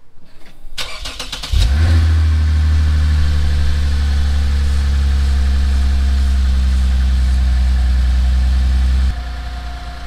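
Lexus IS350's 3.5-litre V6 cranked by its starter for under a second, catching and then running with a steady low hum. About nine seconds in the hum drops sharply in loudness.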